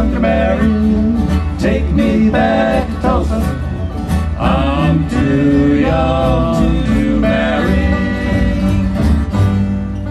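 Bluegrass string band playing live, with upright bass, acoustic guitar, mandolin and banjo under a sung vocal line, as the song comes to its close. The music stops right at the end.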